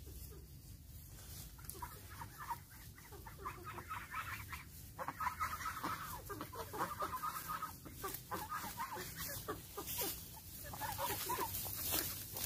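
A flock of chickens clucking, many short overlapping calls that grow busier and louder from about five seconds in.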